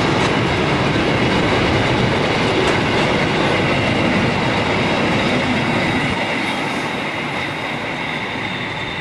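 Container freight train's wagons rolling past close by: a steady rumble of wheels on rail with a faint steady high tone over it, easing off a little near the end as the last wagons pass.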